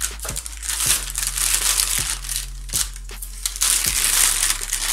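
Baking paper crinkling and rustling in irregular bursts as baked meringues are picked off the lined tray and the paper is pulled back.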